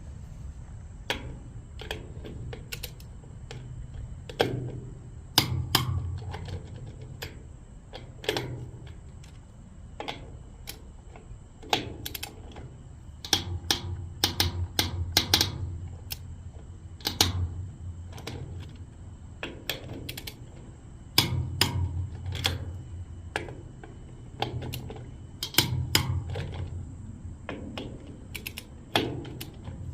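Ratcheting clicks from a click-type torque wrench set to 90 foot-pounds, tightening the wheel fasteners on a Dayton rim. The clicks come irregularly, sometimes in quick runs, with pauses between them.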